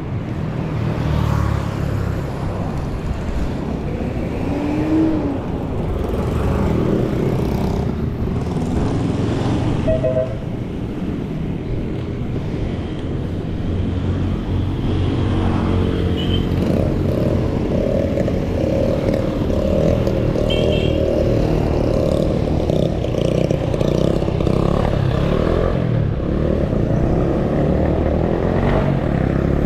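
Steady low wind rumble buffeting a GoPro's microphone as it rides along on a moving bicycle.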